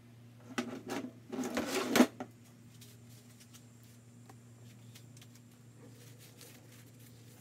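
Metal clanking and clattering as a Volkswagen 1600 crankshaft, with its connecting rods still attached, is laid down on a workbench, loudest about two seconds in. After that only a low steady hum and a few faint ticks.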